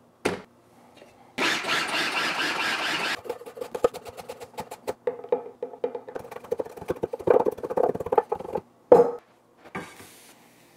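Mushroom duxelles prep: a whir of about two seconds, then a run of quick, irregular knife chops on a wooden cutting board, and a clatter near the end.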